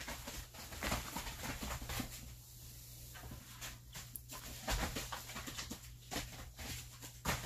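Jindo dogs moving and scuffling on a plastic tarp: scattered soft rustles and paw steps, over a steady low hum.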